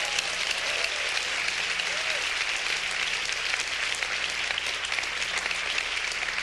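Congregation applauding steadily, many hands clapping at once, with a brief shout from someone in the crowd about two seconds in.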